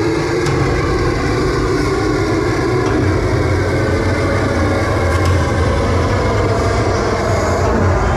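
Loud, steady machine noise: a low droning hum under a dense, even rumble, with no clear break.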